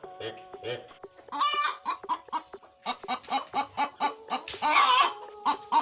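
Hen clucking in a quick series of short clucks, with two louder, longer calls, one about a second and a half in and one near the end.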